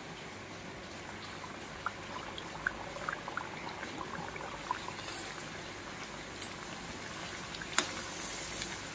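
Maida puris deep-frying in hot oil in an iron kadhai: a steady sizzle with scattered crackling pops as the dough bubbles. One sharp click near the end, as a slotted spoon touches the pan.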